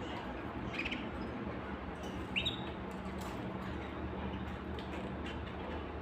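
Caged canaries giving a few short, high chirps, the loudest about two and a half seconds in, over a steady low background hum.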